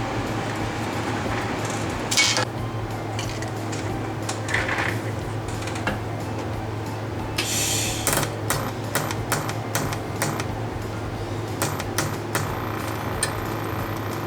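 Scattered light metallic clicks and clinks, a few noisy rushes among them, over a steady low hum.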